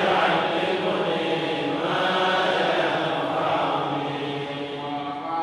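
A man's voice chanting a Quranic recitation in long, drawn-out melodic phrases.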